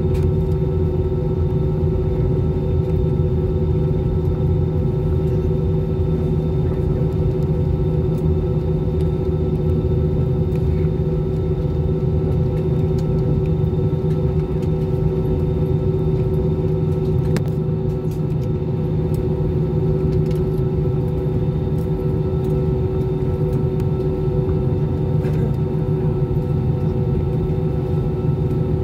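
Jet airliner's engines and cabin air heard inside the cabin while taxiing: a steady low drone with a steady humming tone over it.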